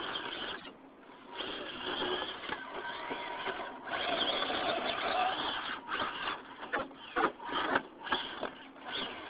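Losi Night Crawler RC rock crawler's electric motor and geartrain whirring in on-off bursts as it climbs over concrete rubble. There are a few sharp knocks of the truck hitting the rocks about seven to eight seconds in.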